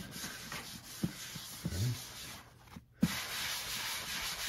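Alcohol-wetted paper towel rubbing back and forth across a plastic fuse-box cover in wiping strokes, with small knocks of the hand on the cover. The rubbing stops briefly a little past halfway and then starts again.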